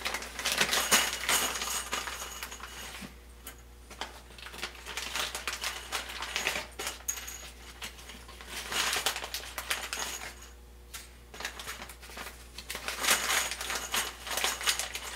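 Plastic zip bag of Anderson Powerpole connector parts crinkling as it is handled and opened, in several bouts, with the small plastic housings and metal contacts inside clicking and rattling against each other.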